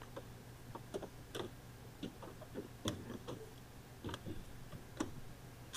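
Light, irregular plastic clicks and taps, about a dozen in a few seconds, from wiring and trim being handled by hand around a car's rear-light housing, over a faint steady low hum.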